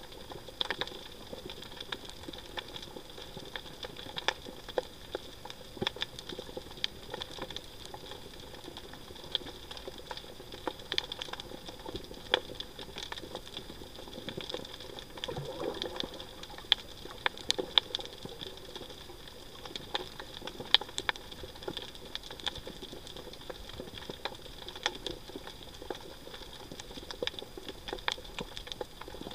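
Underwater reef ambience: a constant scatter of irregular sharp clicks and crackles over a faint steady hiss.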